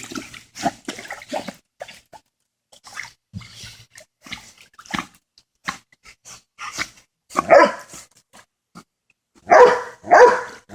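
Dog barking in short, separate bursts, with quieter yelps between; the loudest barks come about two-thirds of the way through and twice near the end.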